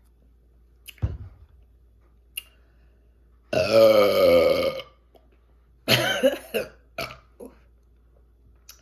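A woman's loud, deep burps from chugging carbonated Coca-Cola: one long burp about three and a half seconds in, falling in pitch, then a shorter one around six seconds and two brief ones just after. A sharp thump about a second in comes before them.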